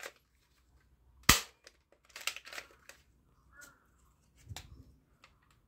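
Plastic foam-dart toy blaster being handled and loaded: one sharp plastic click about a second in, then a run of smaller clicks and rattles as a foam dart goes in.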